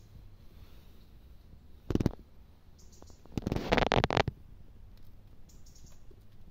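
Goat snuffling and snorting with its nose against the microphone: a short blast about two seconds in, then a longer rough snort about a second later.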